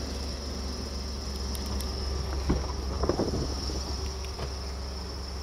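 Pickup truck door being opened: a latch click about two and a half seconds in, then a few faint knocks, over a steady low hum and a steady high-pitched whine.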